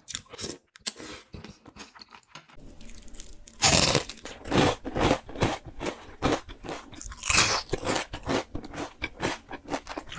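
Close-miked eating sounds: quiet chewing of pasta noodles for the first couple of seconds, then loud, sharp crunching as crispy fried chicken pieces are bitten and chewed, a crunch about every half second.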